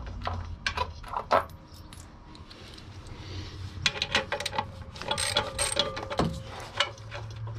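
Ratchet wrench with a 9/16 socket clicking in quick runs, with small metal clinks, as the bolts holding a pool pump motor to its stand are turned out. The clicking is densest in the second half.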